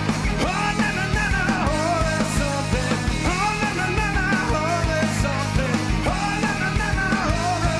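Rock band playing live: electric guitars and bass guitar over a steady beat, with a male singer coming in just after the start.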